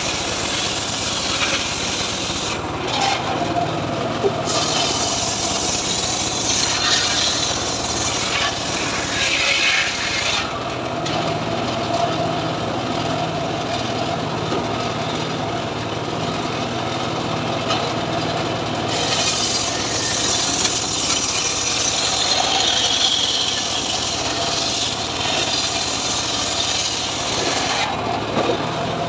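Homemade engine-driven circular saw bench ripping leucaena (lamtoro) logs into boards. The engine runs steadily under the hiss and rasp of the blade cutting through the wood, which swells and eases as each log is pushed through.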